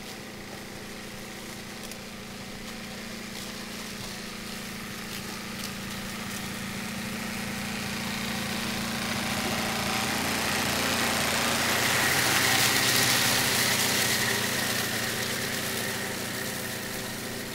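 Tractor engine running steadily under load while its mower cuts through tall hogweed stalks. It grows louder as it draws near, peaks about twelve seconds in with a hiss of cutting and a faint whine, then eases off a little.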